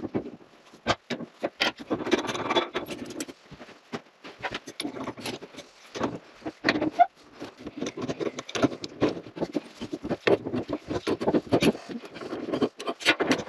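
Irregular metal clinks, knocks and scrapes of hand tools on the faucet and plumbing fittings of an old cast iron kitchen sink as the faucet is worked loose.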